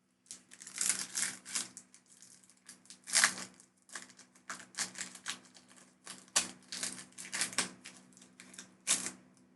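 Pokémon booster pack foil wrapper crinkling and trading cards being handled, in a quick, irregular run of crackles and clicks.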